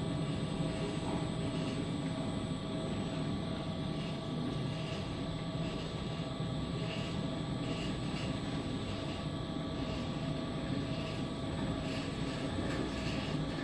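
A steady mechanical drone with several held tones over an even hum.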